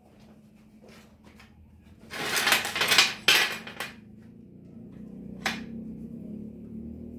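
Metal pieces clattering and scraping against each other for about two seconds, then a single sharp clank, over a low steady hum.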